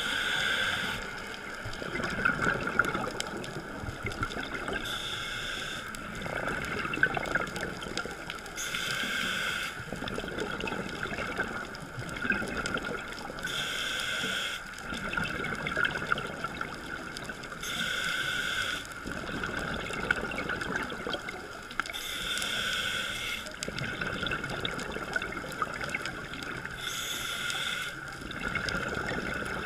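Scuba diver breathing through a regulator underwater: a one-second gush of exhaled bubbles about every four to five seconds, with a bubbling hiss between breaths, muffled by the camera's waterproof housing.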